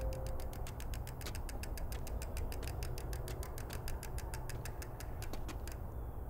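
Bicycle freewheel ratchet ticking rapidly as the rider coasts, then stopping near the end as the bike comes to a halt.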